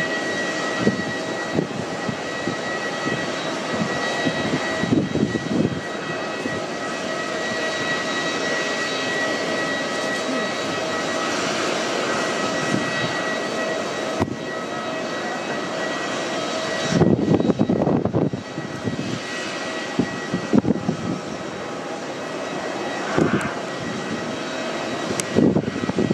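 Jet airliner engines running with a steady whine. Gusts of wind buffet the microphone, mostly in the last third.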